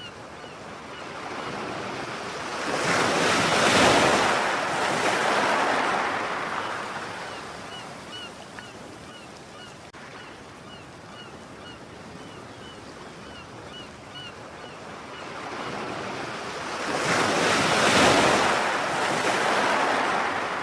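Ocean surf: two waves swell up and wash in, the first about four seconds in and the second near the end, over a steady background wash. Faint short high chirps repeat through much of it.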